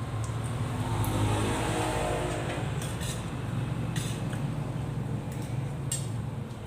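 A steady low motor hum, with an engine rising in pitch and fading away over the first few seconds, like a vehicle passing. A few sharp clicks are scattered through it.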